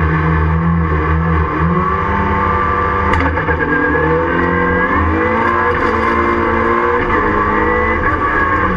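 Ford Fiesta Mk7 rallycross car's engine heard from inside the stripped cabin. It holds steady revs, then after a sharp click about three seconds in it accelerates hard, its pitch climbing and dropping back at each gear change.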